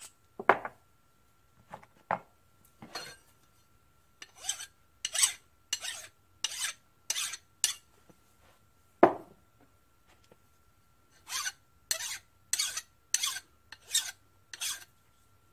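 Hand file strokes on small governor parts of an International Type M engine, taking off burrs: a run of about six even strokes, a pause, then about six more. A few sharp knocks come in between, the loudest about nine seconds in.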